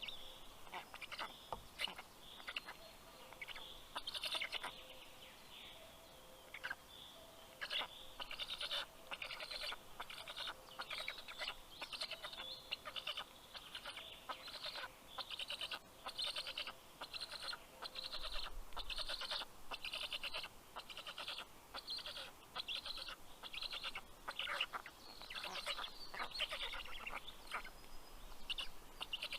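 Black stork chicks calling in the nest: a long run of short, raspy calls, about one to two a second.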